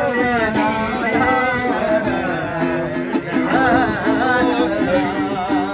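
A man singing a wavering melody over a plucked guitar-like accompaniment, with short repeated notes and quick strum clicks.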